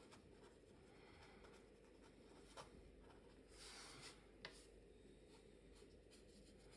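Faint scratching of a felt-tip pen drawing and writing on paper, with a couple of light clicks; otherwise near silence.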